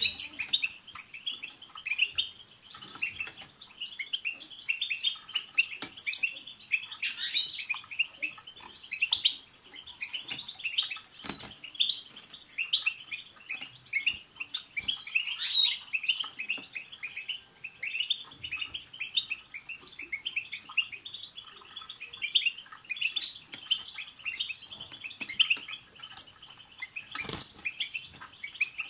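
European goldfinches twittering and chattering in a dense, continuous run of quick high chirps and trills, a group chorus of the kind kept to prompt caged goldfinches to sing.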